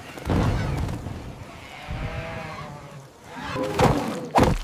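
Animated animal cries with sound effects: a loud rumbling burst at the start, a wavering animal call about two seconds in, then two sharp heavy thumps near the end.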